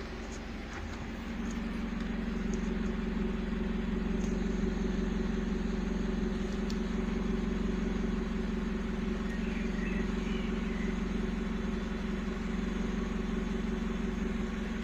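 Exhaust of an Opel Mokka's four-cylinder petrol engine idling at the tailpipe, steady and even. It gets louder about a second in. There are no misfire pops: the idle is smooth after the ignition coil module repair.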